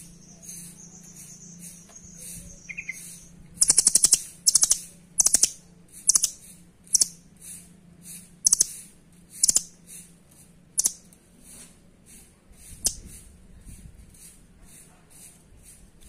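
Blue nuthatch (rambatan doraemon) calling: about ten short bursts of rapid, sharp ticking notes, spaced roughly a second apart, from about four seconds in to about thirteen seconds in, the first few the loudest.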